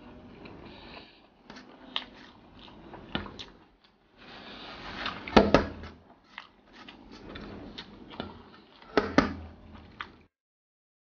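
Close-miked eating sounds: wet chewing and mouth clicks as rice and sardine are chewed, with fingers squishing rice on a steel tray. There are louder smacks about five and nine seconds in, and the sound cuts off abruptly about a second before the end.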